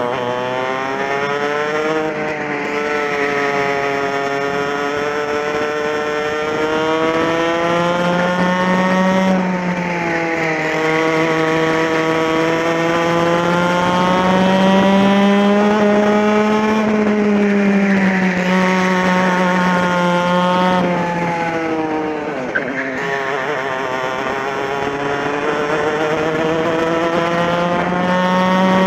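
TKM two-stroke kart engine at racing speed, heard on board: its pitch climbs on each straight and drops off into the corners, several times over, with one sharp drop about three-quarters of the way through.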